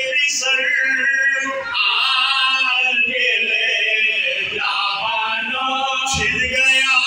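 Men's voices chanting a marsiya, an Urdu elegy for Muharram, together and without instruments, in a few long phrases of held, wavering notes.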